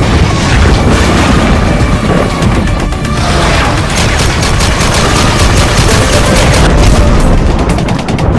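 Action-style intro music with booming hits and rapid machine-gun sound effects; the gunfire rattle is densest in the second half.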